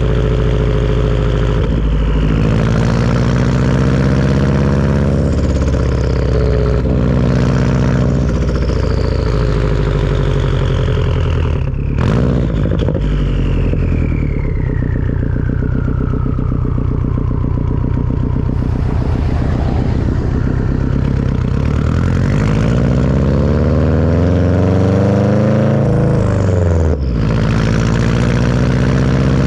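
Turbocharged Subaru engine with a Tomei turbo-back exhaust, driven through the gears: the engine note climbs and drops with each gear change, with a high turbo whistle that glides slowly down over several seconds. Late on the revs rise again to a gear change near the end.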